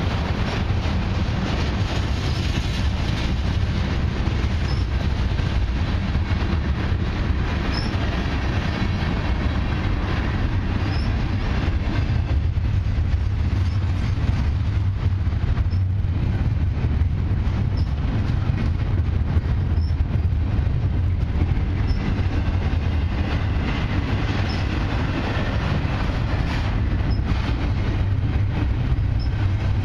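Freight cars of a long mixed train rolling past, tank cars and double-stack container well cars: a steady, even rumble of steel wheels on rail, with faint brief high squeaks now and then.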